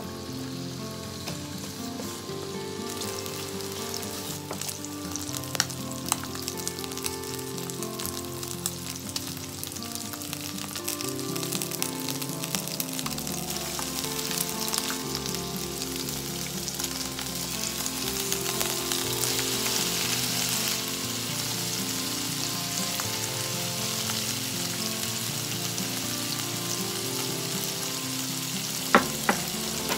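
Chicken pieces sizzling as they fry in oil in a nonstick frying pan, the sizzle growing louder about two-thirds of the way through. Two sharp knocks near the end.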